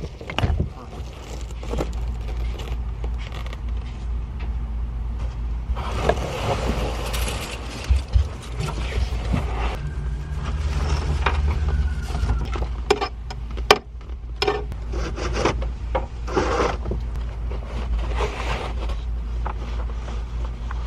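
Hands-on installation work in a car: scattered clicks and knocks and stretches of scraping as parts are handled and fitted, over a steady low hum.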